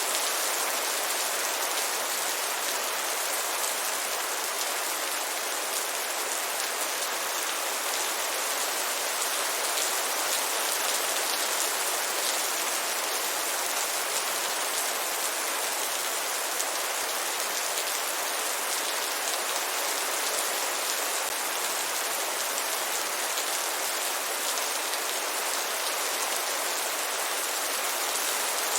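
Heavy rain falling steadily, a dense even hiss of drops on surfaces with no pauses or changes in strength.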